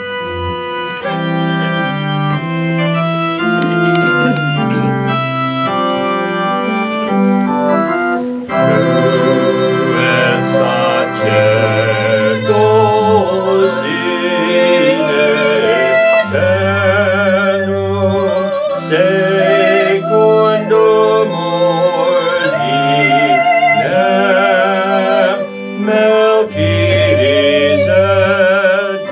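Organ playing sustained chords, joined about eight seconds in by voices singing with vibrato over the organ accompaniment.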